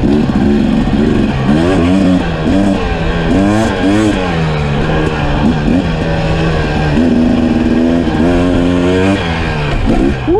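Dirt bike engine heard close up from the rider's position, its pitch climbing under throttle and dropping back again and again, with a couple of steadier stretches at held throttle.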